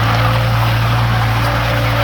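Bobcat 742B skid steer's engine running at a steady speed, with a strong low hum.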